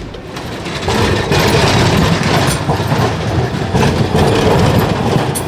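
Articulated city tram passing close by, its steel wheels rumbling along the rails with a few clicks. It grows loud about a second in and stays loud.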